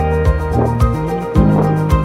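Background music with a steady beat, about two beats a second, under sustained held tones.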